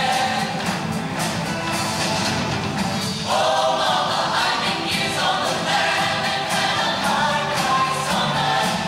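Mixed-voice high school show choir singing over music, many voices at once; about three seconds in the voices come in fuller and louder.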